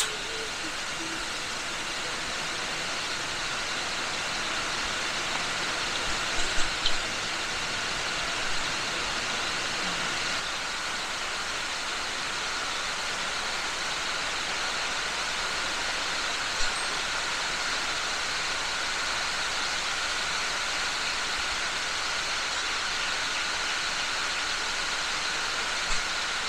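Dense night chorus of forest insects, cicadas among them: a continuous shrill drone made of several steady high pitches, with one voice in the chorus dropping out about ten seconds in. A few faint clicks come through around six seconds in and again later.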